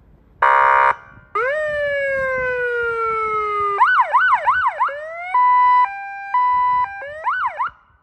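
Lamphus SoundAlert 12V 100W vehicle siren speaker running through its tones: a short buzzy horn blast, then a wail that climbs quickly and falls slowly, then a fast yelp of about three sweeps a second, then a hi-lo two-tone, ending with a couple more quick yelps.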